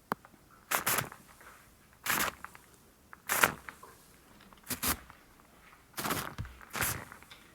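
Shaving cream foam on a microphone, squished and rubbed by hand close up in a series of short strokes, about six in all, roughly one every second or so.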